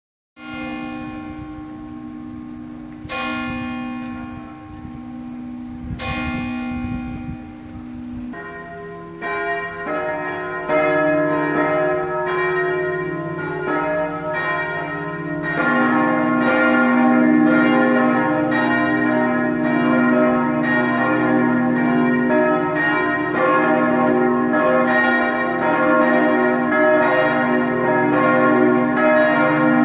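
Church bells of the Propsteikirche St. Cyriakus beginning to ring: one bell sounds alone at first, struck about every three seconds, then further bells join one after another until the full peal rings together, growing louder.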